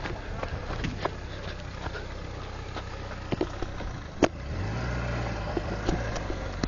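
Car engine running at a distance with a steady low hum, revving up about four and a half seconds in and holding the higher pitch. Scattered sharp clicks and knocks are mixed in.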